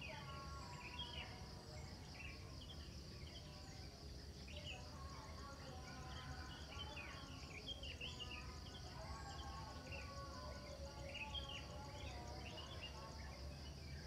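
Many small birds chirping in short, repeated calls over a steady, high, pulsing insect trill and a low, steady hum.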